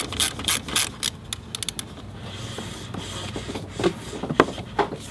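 Hands working parts and wiring around a car battery terminal: a run of quick irregular clicks and rattles, then a softer rustle and a few scattered knocks.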